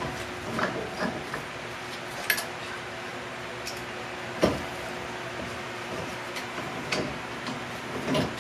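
Scattered metallic clicks and clinks as a fender roller tool is fitted and adjusted on a car's wheel hub, with one sharper knock about four and a half seconds in, over a steady low hum.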